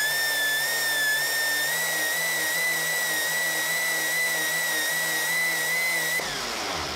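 Gas-turbine-driven 3D-printed blender spinning its bladeless rotor in an empty jar at very high speed: a steady high-pitched whine over a hissing rush. About six seconds in the rush cuts off suddenly and the whine starts to fall as the turbine spins down.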